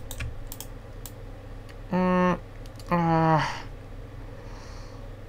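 Scattered clicks of a computer keyboard and mouse. Two short wordless vocal sounds come about two and three seconds in.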